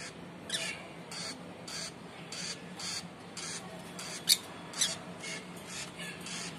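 Rosy-faced lovebirds calling in a rapid string of short, sharp chirps, about two a second, with two louder, shriller ones partway through. The calls fit the young bird at the nest-box opening begging to be fed by its parent.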